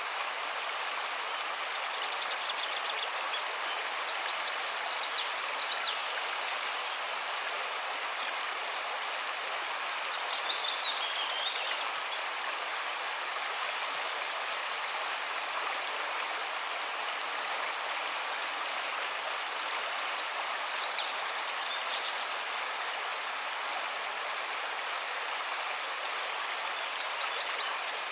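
River water flowing with a steady rushing hiss, while small birds chirp high and quick throughout, with one falling call about ten seconds in.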